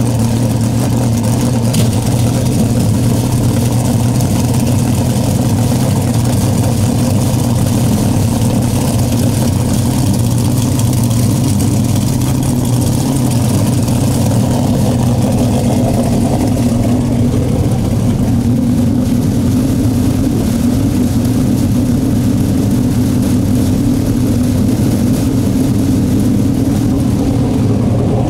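Big-block V8 dirt modified race engine idling steadily and loudly, with a deep lumpy rumble.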